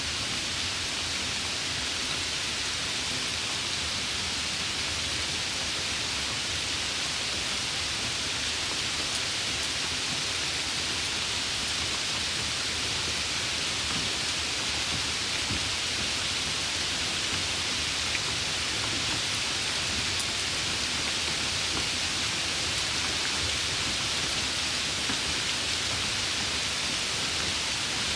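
Steady rain, an even hiss with no breaks or thunder.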